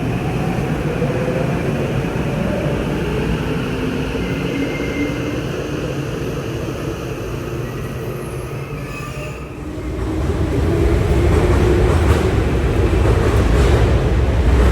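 Tokyu electric commuter train moving through the station: rail and running noise with a faint whine of shifting pitch from the traction motors. About ten seconds in it gets louder, with a deeper rumble.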